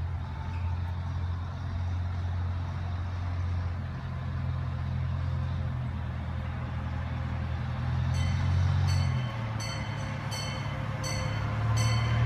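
An approaching Chance Rides C.P. Huntington miniature train locomotive running as a steady low drone that grows louder near the end. About eight seconds in, regular sharp metallic strokes with a ringing tone start, roughly two a second.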